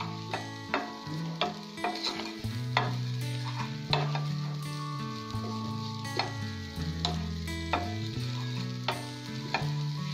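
Crumbled bread frying in ghee in an aluminium pan, sizzling, while a flat spatula stirs it with irregular scrapes and taps against the pan. Low sustained tones shifting in pitch sound underneath.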